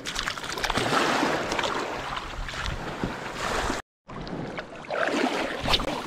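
Shallow seawater splashing and sloshing around a wading angler's hands and legs, with small surf noise. The sound cuts out completely for a moment just before four seconds in, then more splashing follows.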